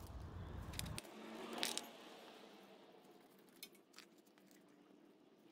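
Faint metallic clicks and rustling of small bolts being handled and started by hand into a scooter's oil filter cap. A low hum cuts off about a second in.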